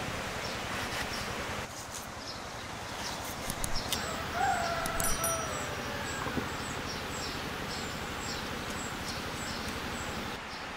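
Birds calling: short high chirps repeating throughout, and one longer call of about two seconds starting about four seconds in, its pitch falling at the end.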